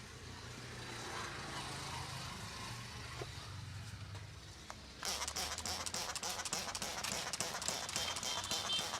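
Low background hum, then about five seconds in, a sudden, dense run of quick hand pats and slaps from a barber's Indian head massage (champi), many strokes a second.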